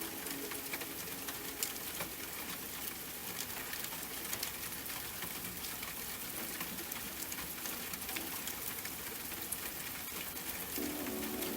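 Steady rain hiss with scattered sharp raindrop ticks. A soft sustained music chord comes back in near the end.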